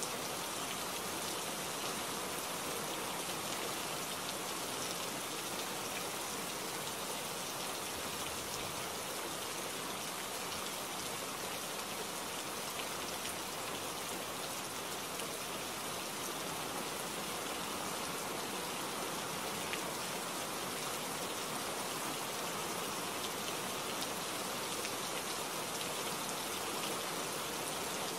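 Steady rainfall: an even hiss with a few faint scattered drop ticks.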